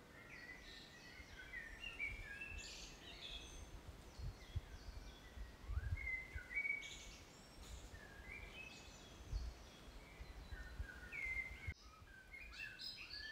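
Several small songbirds chirping and singing, faint, with short quick phrases overlapping one another, over a soft low rumble.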